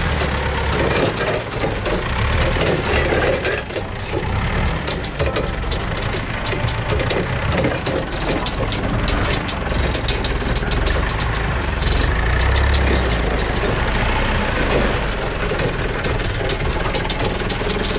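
Old forklift's engine running steadily as it is driven, a low rumble with a fast ticking clatter, swelling briefly about two-thirds of the way through.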